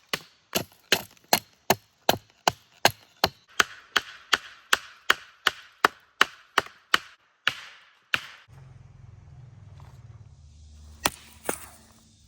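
Rapid, regular blows on wood, about two and a half a second, for some eight seconds, the work of building a heat reflector for a campfire. They stop, then a low rumble, with two more sharp knocks about a second before the end.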